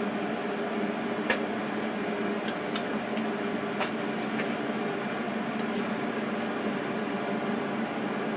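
Steady mechanical hum of a running machine, with a few light clicks in the first four seconds.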